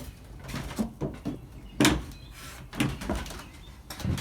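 Irregular knocks and bumps of people moving through a children's playhouse and out its garage opening, with one louder thump about two seconds in.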